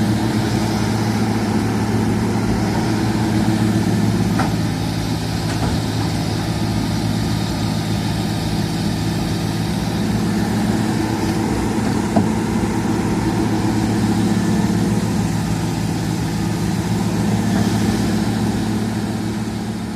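Excavator's diesel engine running steadily, with a sharp click about twelve seconds in.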